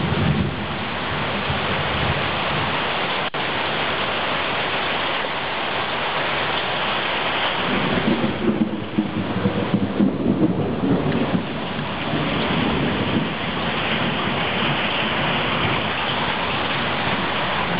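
Heavy rain pouring steadily, with a rumble of thunder rolling for a few seconds about eight seconds in.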